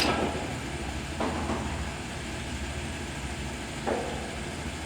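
1961 LeBlond 4025NK heavy-duty gap lathe running with its spindle turning slowly at about 35 RPM: a steady low mechanical hum, with a short clack about a second in and another near the end.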